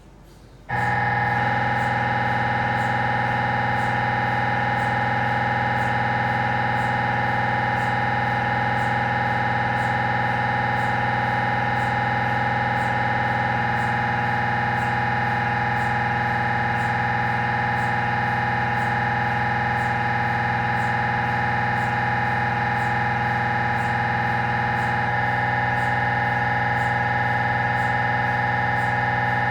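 Siemens Magnetom Avanto Fit MRI scanner running a spine scan sequence: its gradient coils give a loud, steady electronic drone of several held tones that starts abruptly just under a second in. The tone pattern shifts slightly about halfway through and again near the end, as the sequence changes.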